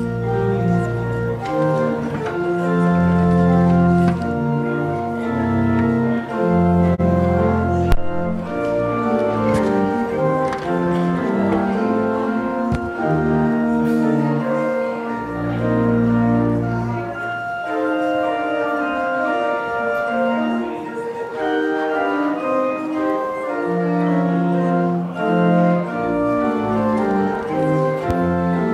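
Church organ playing the postlude after the service: held chords over a melody, with deep pedal bass notes coming in and dropping out several times.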